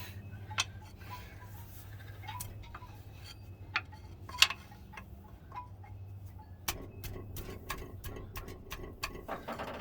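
Light, irregular taps and clinks of metal hand tools on a car engine, tapping a stuck hose loose from its fitting, with one sharper knock about four and a half seconds in. A steady low hum runs underneath.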